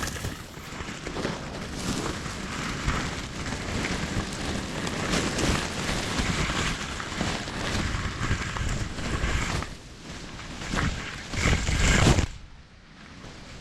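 Wind gusting and buffeting the microphone in uneven surges, with a deep rumble under the rush. It drops away suddenly near the end.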